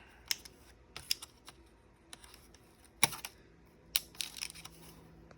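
Scattered sharp clicks and taps of a laptop's plastic parts being handled and pried during disassembly, irregular, the loudest about three seconds in and a quick cluster about a second later.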